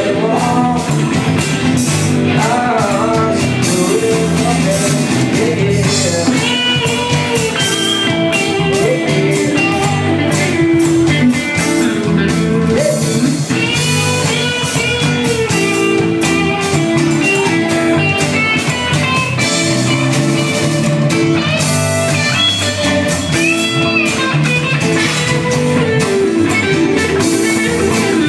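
Live blues-rock band playing: electric guitar lead over bass guitar, strummed acoustic guitar and drum kit, with sung lines at times.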